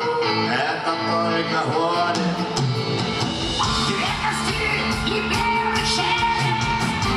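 Live rock band with electric guitar, bass and drums backing a male singer's vocal through a PA. The drums and low end grow fuller about two to three seconds in.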